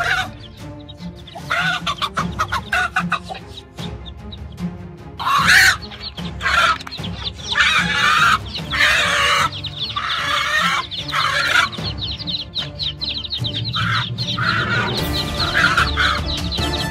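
A hen giving loud alarm squawks and clucks in repeated bursts, mostly from about five seconds in to about twelve seconds. Background music plays underneath.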